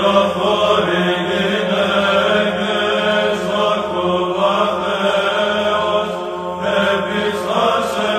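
Orthodox Byzantine-style chant: voices sing a slow, wavering melody over a steady held drone note (the ison).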